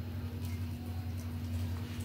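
Steady low electrical-type hum of room noise with a faint steady tone above it, and a few faint small handling sounds.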